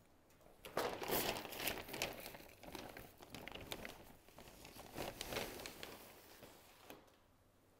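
A bag crinkling and rustling as it is handled, a dense crackle that starts about a second in and dies away near the end.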